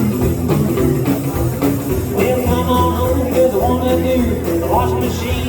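Country boogie band playing live: guitar, bass and drums in a steady, driving rhythm.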